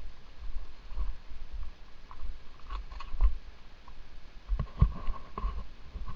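Mountain bike riding over a rough dirt trail: irregular knocks and rattles from bumps, over a low rumble of wind and jolts on the camera's microphone. The loudest run of knocks comes about two-thirds of the way in.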